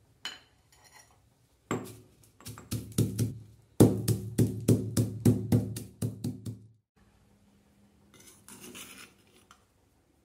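Pestle pounding whole coriander seeds in a small stone mortar: a run of sharp knocks, about three a second, each with a brief stony ring. Near the end comes a softer scrape as the crushed spice is scooped out with a metal spoon.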